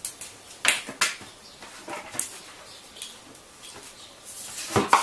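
A dog's claws tapping on a tiled floor, then near the end a louder clatter and clink as she pulls open the door of a small plastic mini fridge with her mouth, the drinks inside rattling.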